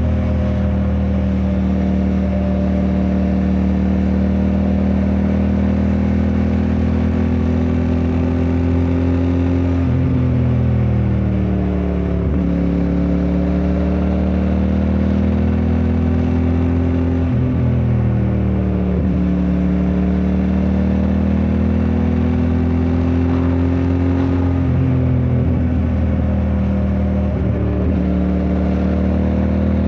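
QJ Motor SRT 600SX motorcycle engine running under way, heard from the rider's position. Its pitch drops three times, at about ten, seventeen and twenty-five seconds in, and climbs back each time as the throttle is closed and opened again through bends.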